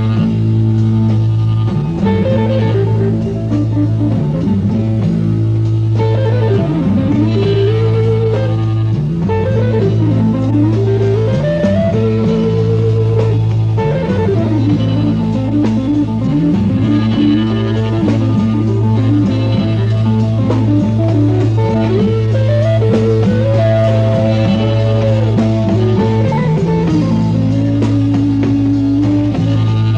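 Background music: a blues-rock guitar track, with notes that bend and slide up and down over a steady bass.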